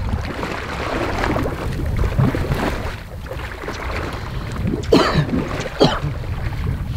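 A boat's engine running steadily under wind on the microphone, with two short sharp sounds about five and six seconds in.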